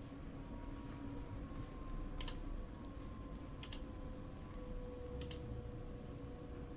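Three faint computer mouse clicks, about a second and a half apart, over a low steady electrical hum.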